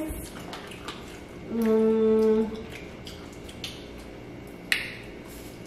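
A woman's closed-mouth 'mmm' hum, one steady note held for just under a second about a second and a half in, the sound of a speaker thinking mid-sentence. Soft clicks and smacks of eating shrimp, with one sharper click near the end.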